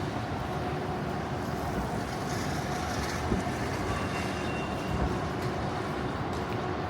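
Steady low rumble of motor vehicles on city streets, with no sudden events standing out.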